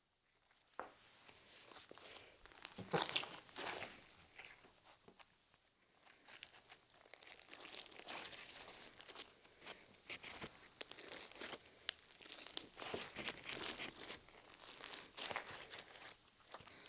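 Slime being squeezed and stretched by hand, making irregular crackling and popping clicks, with one louder cluster about three seconds in and denser crackling from about six seconds on.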